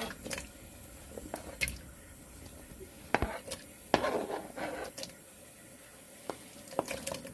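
Diced raw potatoes sliding off a plastic cutting board and dropping into a pot of water: an irregular scatter of knocks and small splashes, the loudest about three and four seconds in.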